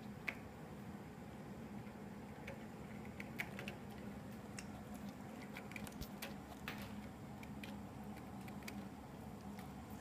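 An old cat with only one tooth gnawing at a sugar cookie too hard for her: faint, irregular little clicks and crunches. A steady low hum runs underneath.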